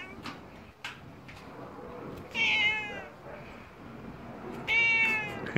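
Tabby cat meowing twice, each call falling a little in pitch. The cat is annoyed at being teased by a hand.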